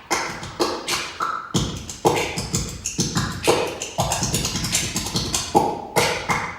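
Body and vocal percussion music: a quick rhythm of claps, slaps and beatboxed mouth sounds, with a few short sung notes. A deeper beat joins about one and a half seconds in.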